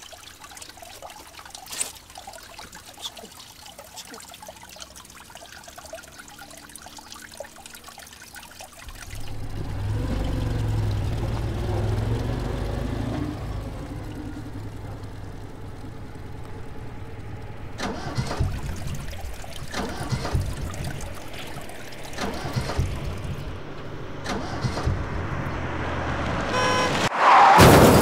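A car running, heard from inside the cabin: a low, steady engine and road rumble sets in about nine seconds in, with knocks and rattles from the car's body increasing toward the end.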